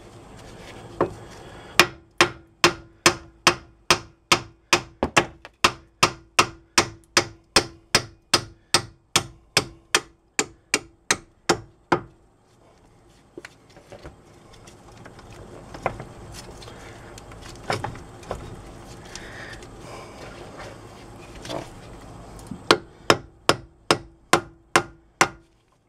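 Hammer blows on a steel bolt, driving a stuck strut-to-knuckle bolt out of the steering knuckle: a steady run of about two and a half strikes a second for some ten seconds, then a pause with a few single blows, then another quick run near the end.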